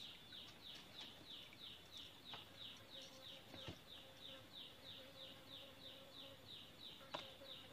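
Faint rhythmic chirping of an insect, a steady run of short falling chirps at about four a second, with a few soft clicks.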